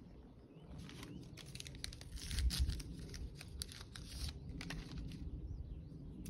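Plastic and paper wrapping crinkling and tearing in a run of sharp rustles as a takeout bento box and its disposable chopsticks are unwrapped, with a low rumble about two and a half seconds in.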